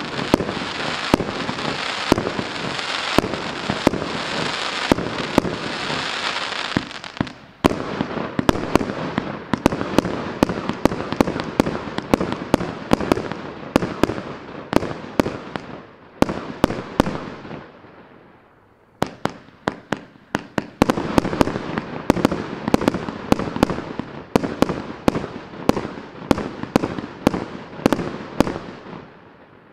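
A 300-shot, 30 mm consumer fireworks cake firing in quick succession, about two sharp shots a second, with the bursts crackling in between. The firing thins out briefly about two-thirds of the way through, then resumes.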